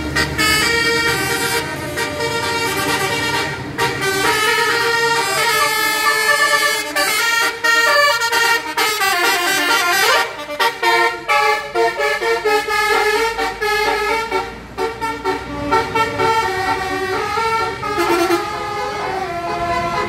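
Bus 'telolet' multi-tone air horns playing quick melodies of stepped notes, one tune after another, broken into many short blasts in the second half.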